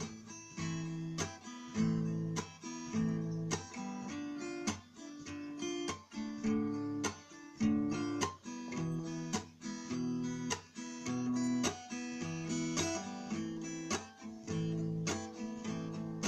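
Acoustic guitar strumming chords in a steady, repeating rhythm.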